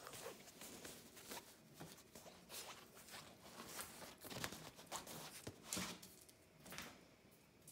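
Faint, irregular rustling and scuffing of a small dog being petted and scrabbling up against fabric trouser legs, with clothing brushing.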